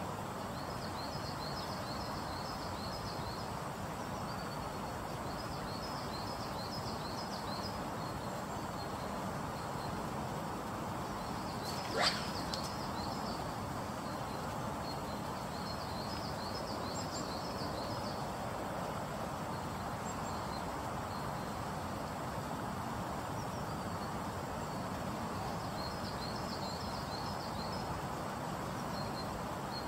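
Steady rushing of a fast, swollen river, with a small songbird singing short high trilled phrases every few seconds. About twelve seconds in there is one brief sharp sound, the loudest moment.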